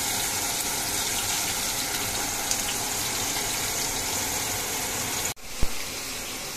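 Whole grouper deep-frying in hot oil in a wok: a steady, dense sizzling hiss. It cuts off suddenly about five seconds in, followed by a single short knock and a fainter steady hiss.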